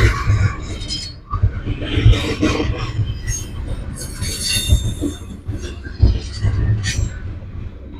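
Intermodal freight train cars rolling past with the brakes applied as the train slows: high wheel and brake squeals over a low rumble and irregular heavy thuds from the wheels.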